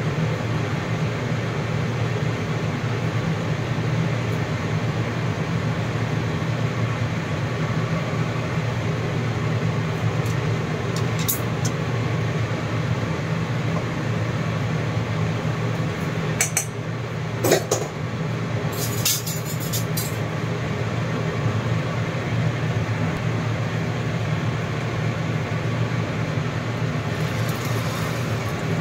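A steady low drone with a few light clinks. Near the end, hot oil sizzles as the beaten egg and grated carrot mixture is poured into the non-stick frying pan.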